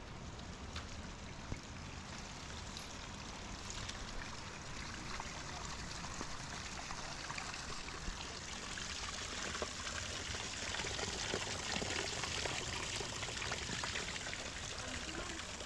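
Water running in a stream, a steady rush with fine splashing that grows a little louder about ten seconds in.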